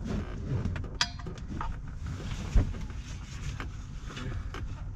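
Knocks, clicks and rubbing as a wheel and tyre are shifted and wedged inside a car, with one sharp thump about two and a half seconds in, over a steady low rumble.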